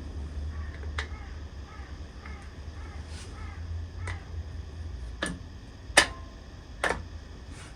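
A handful of separate sharp clicks and knocks from the metal parts of a DRO scale being placed and shifted on the mill, the loudest about six seconds in. Under them runs a steady low hum.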